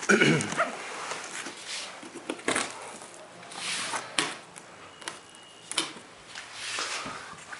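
Cardboard box and packing material being handled and opened: irregular rustling and scraping with light knocks, loudest right at the start.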